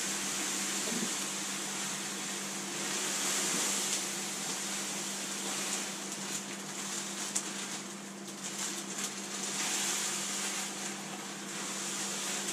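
Malt grain pouring from a plastic bag into a mash bag in a brewing kettle of hot water: a rushing hiss that swells and eases, with crinkling plastic and one sharp click. Under it runs a steady low hum. This is the mash-in.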